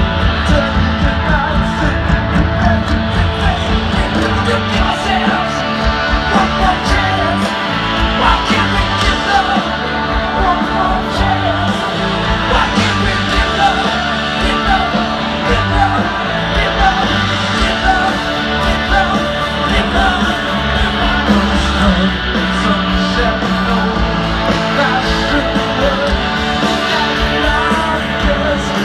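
Live rock band playing loud and steady, with electric guitar, bass, drums and a singing voice, heard from far out in a stadium crowd.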